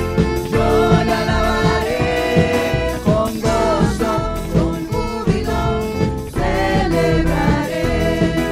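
Church worship band and singers performing an upbeat praise song, with sung melody over a steady beat.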